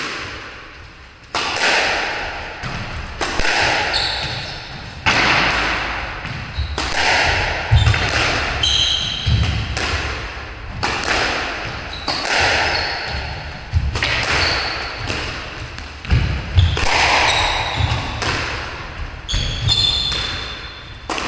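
Squash rally: the ball struck by rackets and smacking off the court walls about every second or two, each hit ringing in the court's echo, with short shoe squeaks on the wooden floor between shots.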